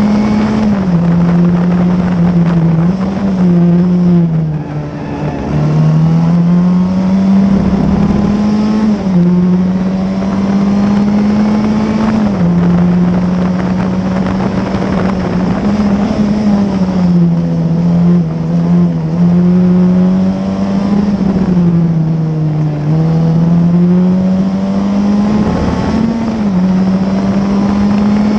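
Classic Formula Ford's 1600 cc Ford Kent four-cylinder engine at race speed, heard onboard: the engine note climbs steadily through each gear and drops sharply at each gear change, several times, with wind rushing past the open cockpit.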